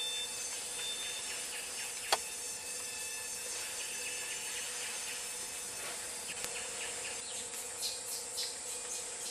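Forest insects keep up a steady high drone. A single sharp click comes about two seconds in. Near the end, insects start chirping in short pulses, a few a second.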